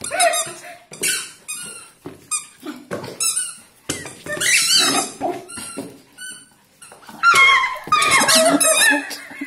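Rubber chicken squeak toy squeezed over and over in short squeaks and squawks, loudest over the last couple of seconds.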